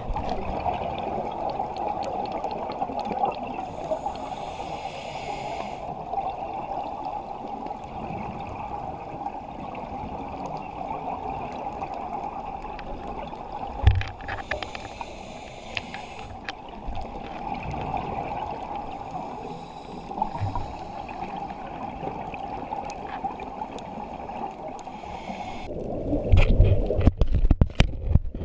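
Muffled underwater sound through a GoPro's waterproof housing: a steady wash of water with a scuba diver's regulator breathing, two inhalations heard as a hiss of about two seconds each and exhaled bubbles gurgling. Near the end comes a cluster of knocks and thumps.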